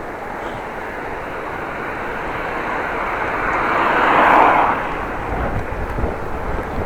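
A motor vehicle passing close by on the road: a rushing tyre and engine noise that swells to a peak about four seconds in and then fades. Near the end, wind rumbles on the microphone.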